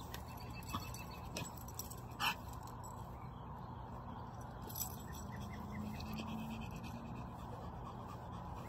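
Low, steady outdoor background noise with a few faint clicks scattered through it and one brief, sharper sound about two seconds in.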